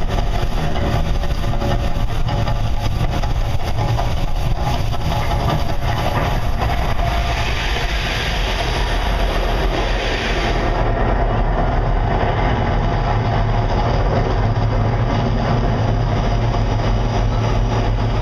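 The Mirage volcano show's eruption effects: a loud, continuous low rumble, with a hiss on top that cuts off suddenly about eleven seconds in.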